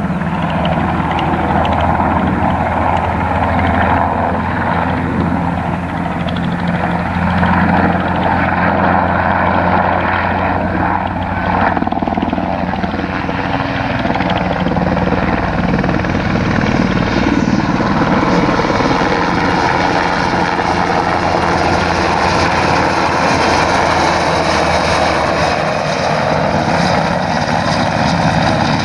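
Military helicopter flying low overhead: a loud, continuous rotor and turbine noise that holds steady, getting brighter and hissier in the second half.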